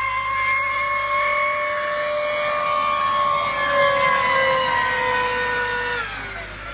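Electric RC racing boat running flat out, its brushless motors and propeller giving a steady high-pitched whine over a hiss of spray. About six seconds in the whine drops in pitch and fades as the throttle comes off.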